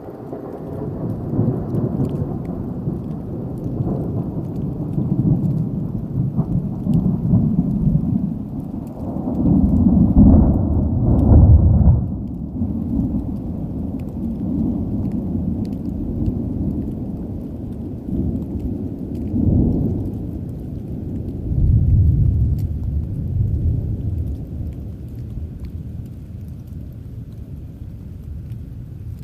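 Rolling thunder: a long, deep rumble that swells and ebbs several times. It is loudest about ten to twelve seconds in, swells again twice, then dies away toward the end.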